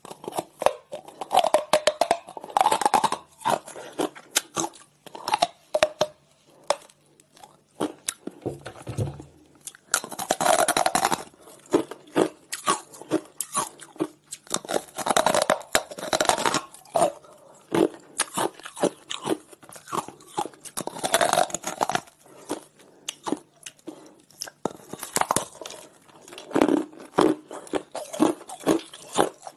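Hard frozen coloured ice being bitten and chewed close to a clip-on microphone: sharp cracks and crunching in repeated bursts, with short pauses between mouthfuls.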